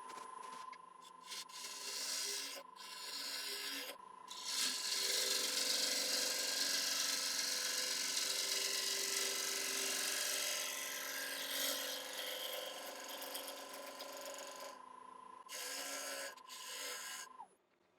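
Wood lathe running with a steady whine while a turning tool cuts a spinning Iroko bowl blank, the cut hissing in passes with short pauses and loudest for several seconds in the middle. The whine and the cutting stop about a second before the end.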